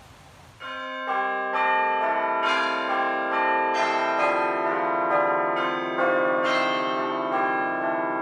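A peal of bells, a new note struck about twice a second and each ringing on over the ones before, starting about half a second in.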